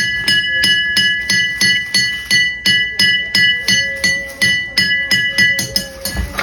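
A glass struck repeatedly, each tap ringing with the same clear tones. The taps come about three a second, quicken near the end and stop abruptly.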